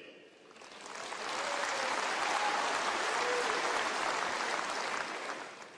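Large crowd applauding, swelling up within the first second or so, holding steady, then dying away near the end.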